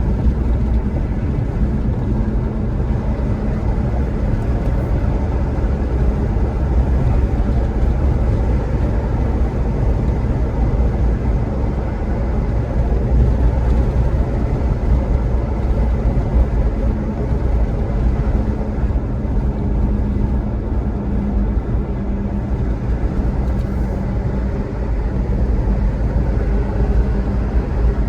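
Vehicle driving steadily, with a constant low engine and road rumble heard from inside the cabin.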